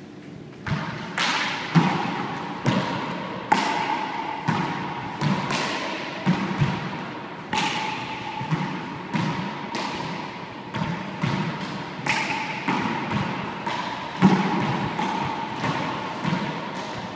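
Handball rally in a four-wall court: a small rubber ball smacked by gloved hands and rebounding off the walls and floor, sharp echoing hits every half second to a second starting about a second in. Sneakers squeak on the court floor between the hits.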